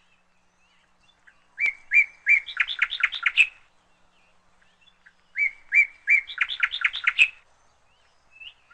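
A bird singing two phrases of quick chirps, each about two seconds long, speeding up and rising in pitch toward its end; the second phrase comes some four seconds after the first and is a near copy of it.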